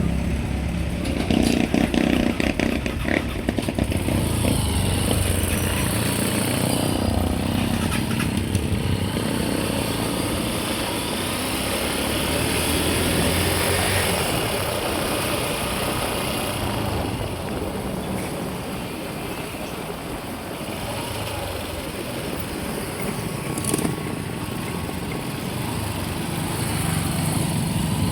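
Motor vehicle under way on a road: steady engine and road noise, heard from on board, with a heavier low engine rumble in the first few seconds.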